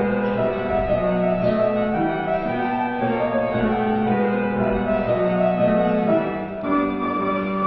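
Piano playing classical accompaniment for a ballet class, a melody over held chords that change every second or so.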